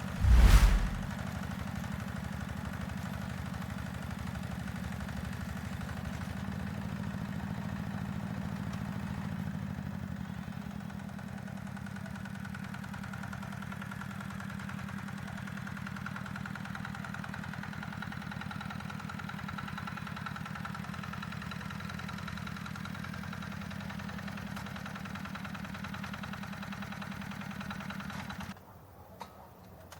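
Heavy walk-behind tractor engine running steadily, with a loud knock about half a second in. The engine sound cuts off abruptly near the end.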